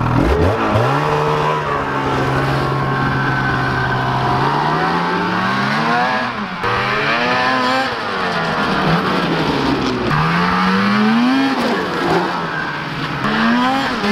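Snowmobile engine revving up from idle about half a second in and holding a steady note, then rising and falling in pitch several times as the sled is ridden around.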